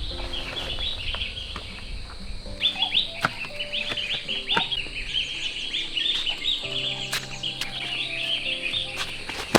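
Small birds chirping busily over background music of soft, held notes, with a few sharp clicks.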